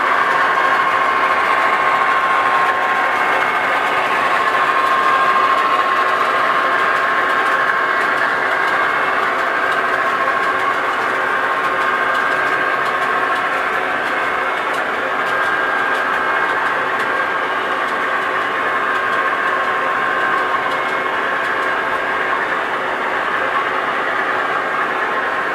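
DCC sound from OO gauge model diesel locomotives: recorded diesel engine sound played steadily through their small onboard speakers, with a few fixed tones over a constant hiss.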